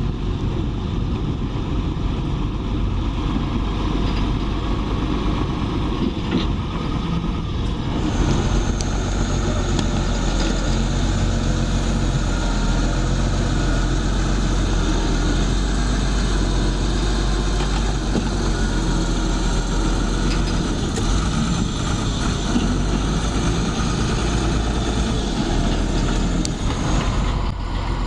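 Engines of heavy road-construction machinery running steadily. About eight seconds in, the sound becomes fuller and brighter and holds there.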